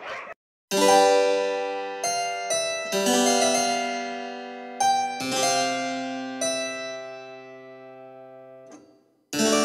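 Background music: keyboard notes struck one after another, each ringing out and slowly fading, with a short silence near the start and another near the end.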